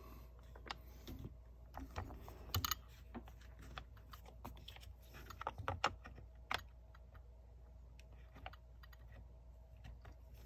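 Sparse light clicks and taps of the CZ Scorpion EVO 3's polymer lower and trigger group being handled and worked back onto the receiver. The loudest click comes about six and a half seconds in.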